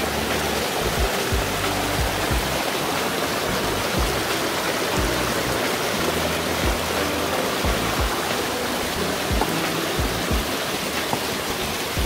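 Small mountain stream tumbling over mossy rocks in short cascades, a steady rush of running water. Background music plays underneath.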